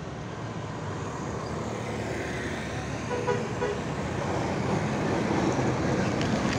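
Large intercity coach bus approaching and pulling past close by, its engine and tyres growing steadily louder. A short horn toot sounds about three seconds in.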